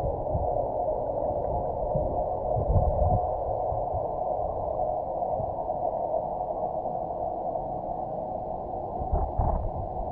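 Muffled underwater ambience picked up by a camera submerged in a swimming pool: a steady hiss with irregular low thumps.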